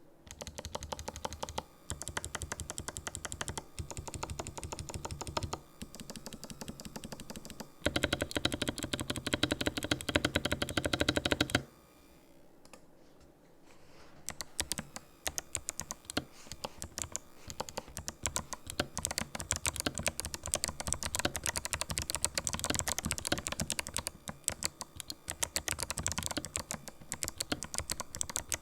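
Typing on a Ninja87 Pro mechanical keyboard with fully lubricated Kailh white clicky switches: a fast, continuous run of key clicks. The clicks are loudest and densest for a few seconds about a third of the way in, then fall off to a brief pause before the typing resumes.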